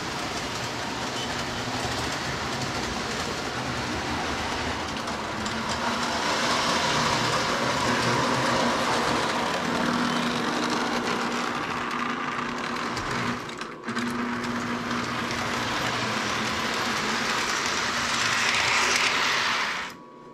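Lionel toy train running on its track: a steady rolling noise from the electric motor and wheels on the rails, with a faint hum. It swells and fades as the train passes, dips briefly about two-thirds of the way through, and stops abruptly near the end.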